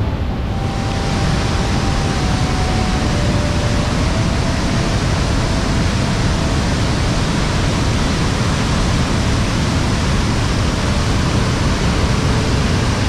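Steady, loud rush of Niagara Falls, water pouring down onto the boulders below, growing fuller in the highs about half a second in.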